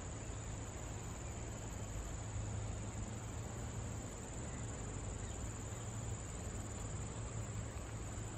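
Insects in the surrounding tropical forest keep up a steady, unbroken high-pitched chorus, over a low steady hum.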